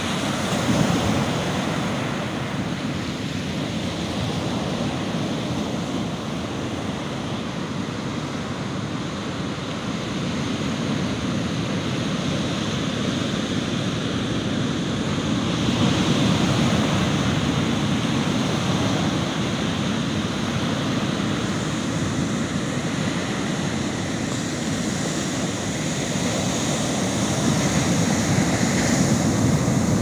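Ocean surf breaking on a beach: a continuous wash of waves that swells louder about a second in, around the middle, and again near the end.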